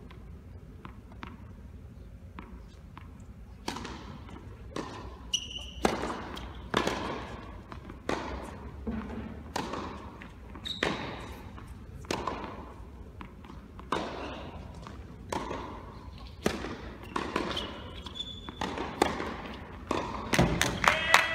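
Tennis balls struck by rackets and bouncing on an indoor hard court, a steady run of sharp pops starting a few seconds in, each echoing around a large empty hall. A few short squeaks come in between the hits.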